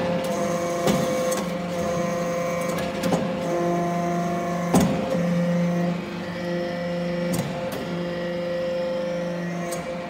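Aluminium chip briquetting press running: a steady hum from its hydraulic power unit that swells and eases as the press cycles, with a sharp metallic knock every second or two as the ram works and briquettes are pushed out.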